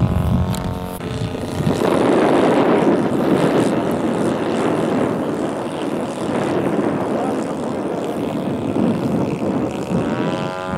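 Engine and propeller of a radio-controlled scale Focke-Wulf 190 model in flight. A steady engine tone gives way to a rough rushing noise for most of the stretch. Near the end the clear engine tone comes back and rises in pitch.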